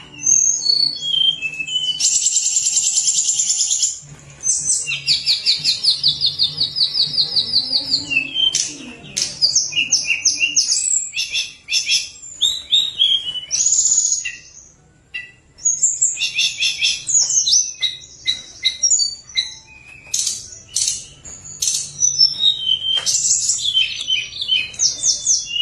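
Caged tledekan gunung singing vigorously: a long varied song of rapid high trills and quick whistled, slurred phrases, with a couple of short pauses.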